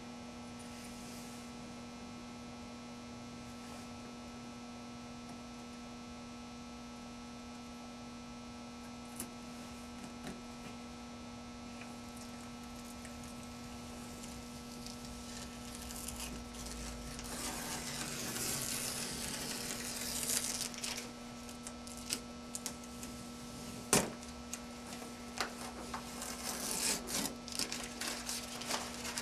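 Steady electrical mains hum throughout. From about 16 s in, the crackling rustle of adhesive application tape being peeled off a painted surface, with a sharp click near 24 s and more short crackles near the end.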